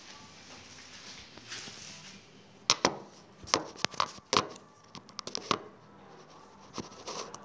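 Handling noise of a phone being moved about: a run of about nine sharp knocks and rubs close to the microphone in under three seconds, starting near the middle, then two more near the end.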